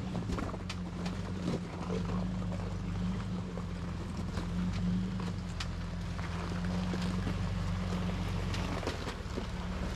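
Four-wheel-drive truck's engine running steadily at low speed on an off-road trail, with scattered clicks and knocks throughout.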